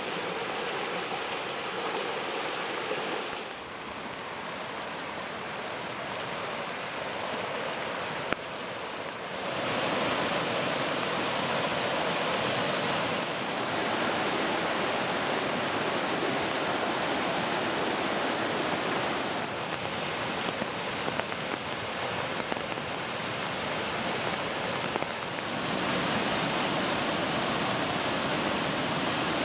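Rushing floodwater from creeks in spate, including a creek gushing out of a large culvert, and turbulent river rapids near flood crest. It is a steady roar of churning water that changes abruptly in loudness a few times, with a single sharp click about 8 seconds in.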